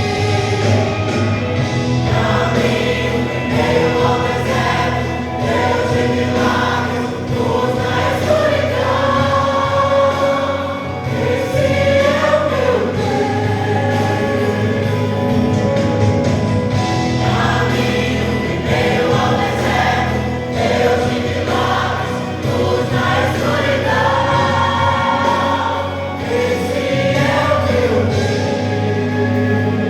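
A small vocal group singing a Christian worship song in harmony, over a sustained low instrumental accompaniment.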